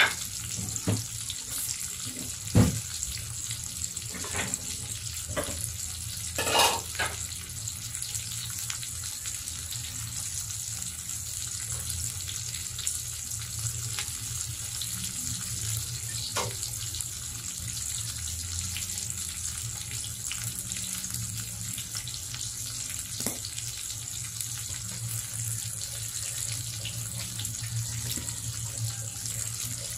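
Pork belly and sliced ham sizzling in a grill pan on the stove: a steady hiss, with a handful of sharp clicks in the first seven seconds, the loudest about two and a half seconds in.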